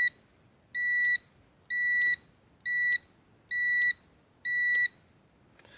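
Digital multimeter continuity beeper sounding a high steady tone in six short beeps, about one a second, as the test leads make and break contact. Each beep carries on briefly after contact: the meter has a turn-off delay.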